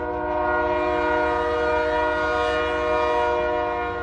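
Diesel locomotive air horn sounding one long, steady, multi-note blast, over the low rumble of the passing passenger train.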